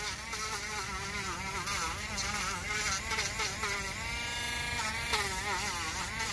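Dremel rotary tool whining as it grinds old glue off the bead of a nitro RC car tire, its pitch wavering up and down, briefly steady about four seconds in.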